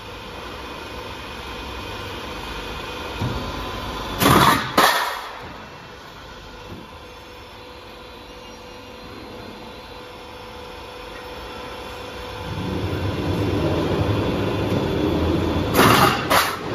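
Double-layer roof tile and corrugated sheet roll forming machine running with a steady hum as it rolls steel sheet into corrugated profile. Twice a pair of loud, short rushing noises about half a second apart cuts in, a little after four seconds and again near the end, and about three quarters through the machine grows louder.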